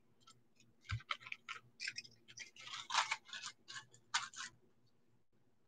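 Faint, irregular light clicks and brief rustles of jewelry being handled close to the microphone, starting about a second in and stopping near the end.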